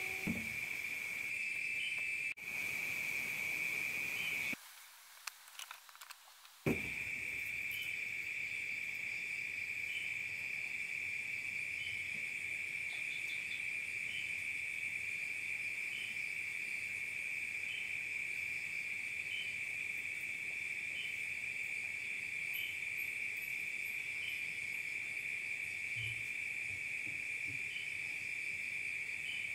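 Night insect chorus: a steady, high, unbroken trill, with a second insect chirping above it about once every second or two. The chorus cuts out for about two seconds a few seconds in and comes back with a click.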